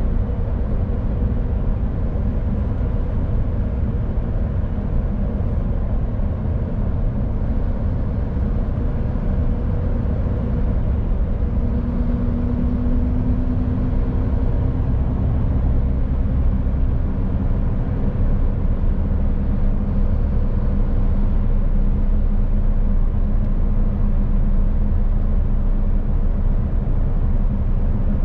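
Mercedes Actros truck of about 20 tonnes driving at steady speed: continuous low engine and road rumble with a faint engine hum, swelling slightly in the second half.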